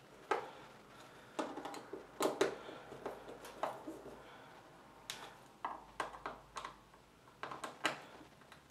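Irregular light clicks and knocks of a screwdriver and a plastic female plug connector being handled as its screws are driven back in.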